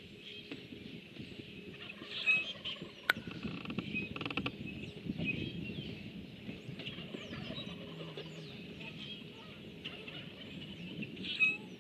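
A turkey gobbling twice, once about two seconds in and again near the end, with small birds chirping in the background.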